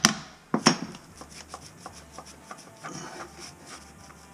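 Hammer tapping a plastic insert toilet flange with a rubber O-ring down into a 3-inch ABS drain pipe: three sharp taps in the first second. Then light clicks and rubbing as the flange is pressed and turned by hand on the concrete floor.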